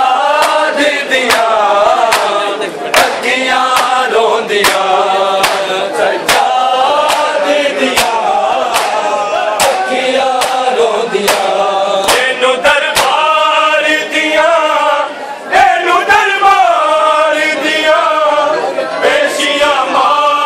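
A Punjabi noha chanted by a male reciter with other voices joining in. It runs over regular sharp claps of matam (chest-beating), a little more than one a second.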